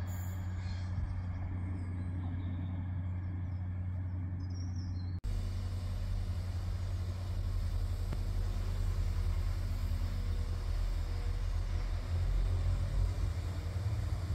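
Steady low hum of an Avanti West Coast Class 390 Pendolino electric train; about five seconds in the sound breaks off abruptly into a louder, rougher train rumble that swells a little near the end.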